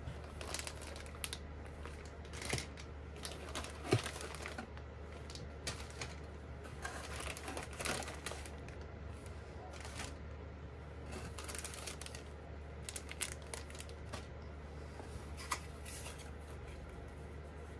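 Scattered small clicks, taps and rustles of hands handling plastic model-kit parts and packaging, over a steady low hum.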